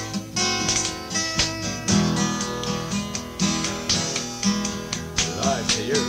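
Acoustic guitar strummed in a steady rhythm over held chords, with a wavering melody line coming in over it about five seconds in.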